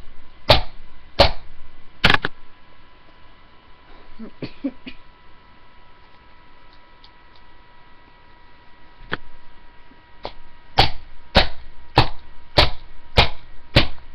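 Hammer blows on the plastic shell of a Dell computer mouse: three sharp strikes in the first two seconds, a pause with faint handling noises, a single strike, then a steady run of blows about every 0.6 s near the end. A faint steady whine sits underneath.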